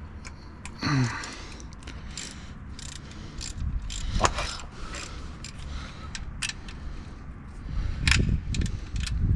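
Hand ratchet wrench clicking in short runs, with irregular clinks and knocks of metal tools and parts.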